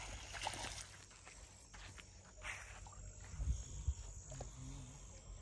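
Footsteps and scuffing on a dry dirt bank, a few scattered scrapes, with crickets chirping faintly in the background.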